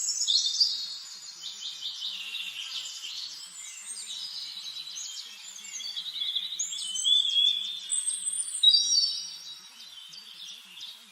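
Several songbirds singing at once: a dense chorus of overlapping high chirps, trills and whistled glides, louder around the start and again about seven to nine seconds in.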